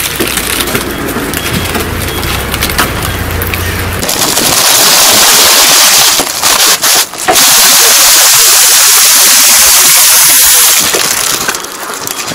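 A vehicle's wheel pressing down on a sealed plastic bag of puffed corn snacks. A low engine hum comes first, then several seconds of loud, steady crackling noise as the bag is crushed and split, with a brief break partway through.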